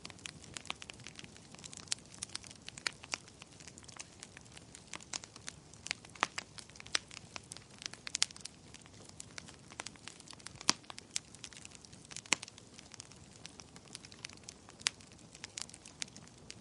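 Wood fire in a fireplace crackling: irregular sharp pops and snaps over a soft steady hiss, with a few louder pops about two, seven, eight and eleven seconds in.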